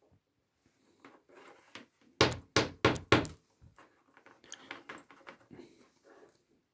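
Four sharp knocks in quick succession about two seconds in, with lighter clicks and rustles around them: the Ethernet cable and its RJ45 plug being handled and knocked against the work surface while the untwisted wires are pushed into the connector.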